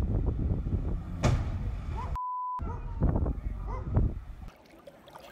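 Heavy wind rumble on a phone microphone mixed with excited voices. About two seconds in, a short single-tone censor bleep blanks out a word. The rumble cuts off abruptly about four and a half seconds in.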